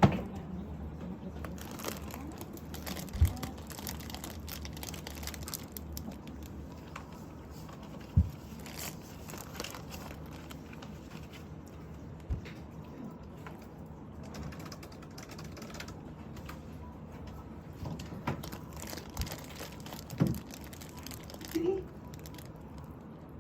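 Plastic packaging crinkling and rustling on and off as it is handled and torn, with a few low thumps along the way.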